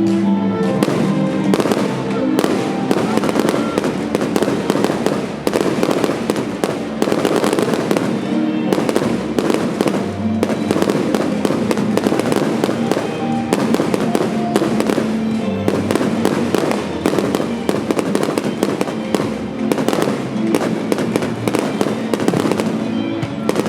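Fireworks bursting and crackling in a dense, continuous barrage, many reports a second, over music with sustained tones.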